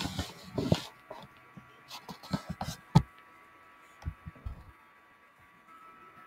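Computer mouse clicks and keyboard keystrokes, an irregular run of sharp clicks and taps, the loudest about three seconds in and a last cluster around four seconds in. A faint steady electrical hum sits underneath.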